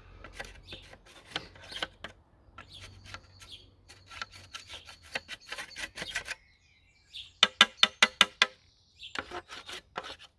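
Plastic parts of a Dyson DC04 vacuum cleaner being handled and taken apart by hand: scattered clicks, knocks and rubbing, with a faint high squeak in the middle. A quick even run of about eight sharp clicks comes near the end.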